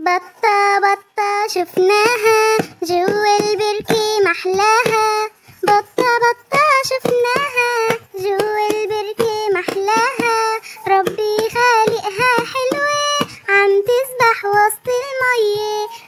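A child's voice singing a children's song over music, the melody carrying on continuously.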